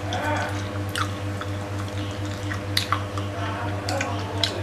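Close-up wet chewing and lip-smacking of someone eating fried meatballs with duck egg, with a few sharp mouth clicks, over a steady low hum.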